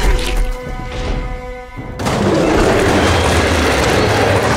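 Background music from the cartoon's soundtrack. About two seconds in, a loud, dense noise effect cuts in over it and holds to the end, with a boom-like low end.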